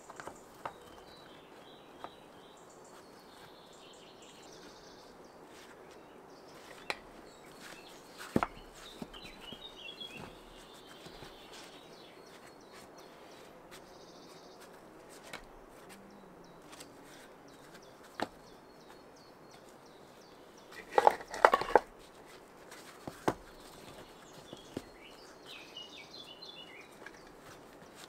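Rough stones knocking and clacking against each other as they are lifted and set down by hand, in scattered single knocks with a louder clatter of several knocks about three-quarters of the way through. Birds chirp in the background.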